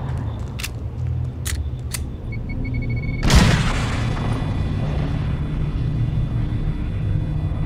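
Film soundtrack sound design: a steady low rumble with a few sharp clicks and a short run of electronic beeps, then one heavy boom about three seconds in that dies away slowly over the rumble.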